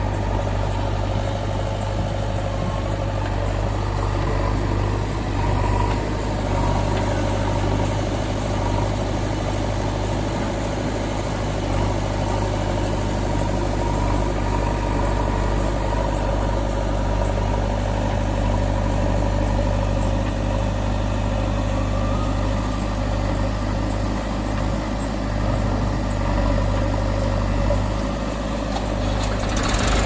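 Diesel engines of a JCB backhoe loader and a Massey Ferguson tractor idling, a steady low drone that holds an even pitch throughout.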